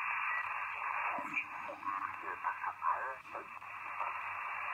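Shortwave receiver audio in lower sideband on the 80-metre amateur band: steady static hiss, cut off above about 3 kHz by the receiver's 2.4 kHz filter. A garbled sideband voice drifts through in the middle as the receiver is tuned.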